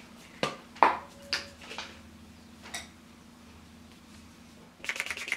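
Makeup products being handled and set down: a few separate light knocks in the first seconds, then near the end a quick run of clicks lasting about a second.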